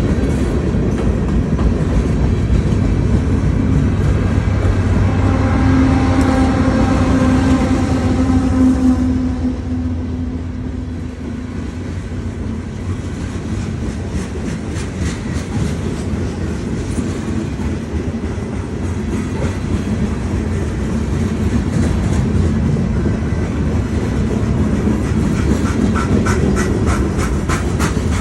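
CSX freight train rolling past, its cars rumbling and its wheels clacking over rail joints. A drawn-out tone rings over the noise for several seconds and fades out about ten seconds in.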